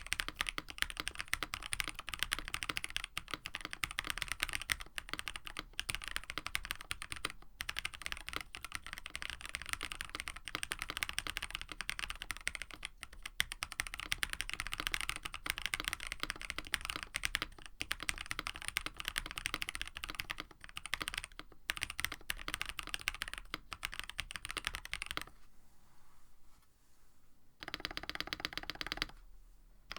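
Fast, continuous typing on a KBD67 Lite R1 mechanical keyboard fitted with lubed Black Cherry Pie linear frankenswitches (Cherry top, NK Cream stem, JWK bottom) in an FR4 plate, with GMK Striker clone keycaps. The typing stops about 25 seconds in.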